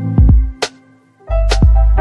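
Background music: a track with deep bass notes and sharp drum hits over held tones, dipping into a brief lull just past the middle before the bass comes back in.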